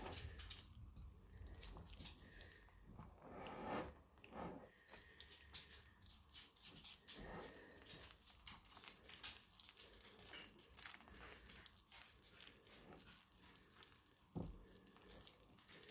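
Faint wire whisk mixing whiskey into powdered sugar in a glass bowl: soft repeated scrapes and light clicks of the wires against the glass, with a slightly louder knock near the end.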